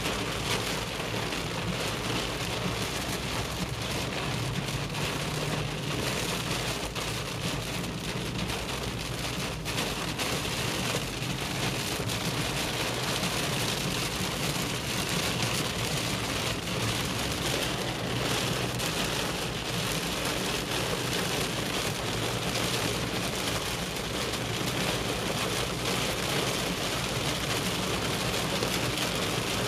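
Heavy thunderstorm rain pelting a car's roof and windscreen, heard from inside the car as a steady, dense hiss.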